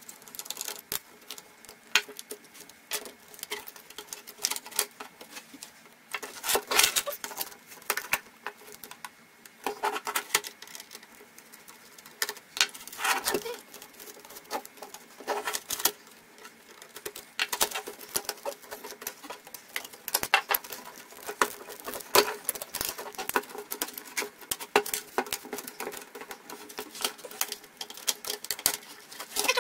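Hands taking apart a Hasee Slikroad Q310N laptop: plastic and metal parts clicking, tapping and scraping in irregular bursts, with a few sharper knocks as the chassis is handled.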